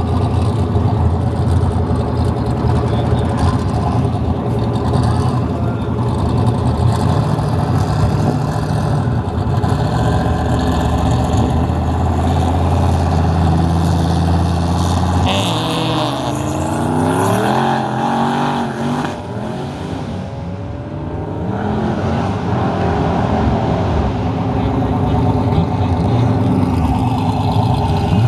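A Fox-body Ford Mustang and a Subaru Impreza hatchback idling side by side at a drag-strip starting line. About halfway through they launch at full throttle and accelerate away, engine pitch climbing and dropping with each gear change as the sound fades down the strip. Near the end another car's engine runs close by.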